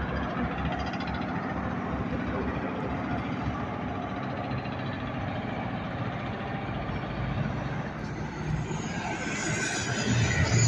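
Vehicle traffic and engines running steadily. Near the end a truck's engine grows louder as it comes closer.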